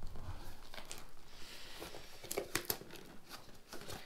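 Sealed cardboard shipping box being torn open by hand: cardboard and paper tearing and crinkling, with a cluster of sharp cracks and snaps a little past the middle.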